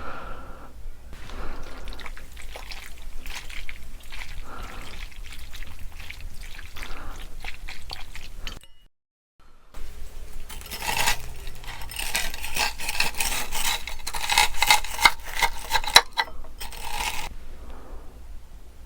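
Close-miked eating sounds: utensils clinking and scraping against a dish while wet, saucy noodles are stirred and eaten. It drops out completely for about a second near the middle, then comes back busier and louder.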